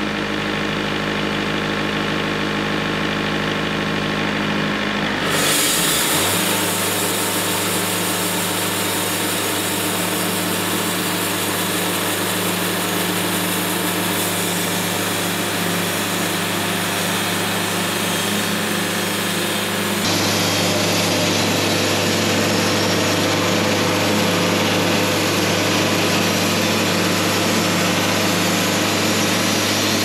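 Wood-Mizer LT70 portable bandsaw mill running steadily. About five seconds in the sound steps up as the band blade works through a sassafras log, a steady sawing noise that continues, with another sudden shift about two-thirds of the way through.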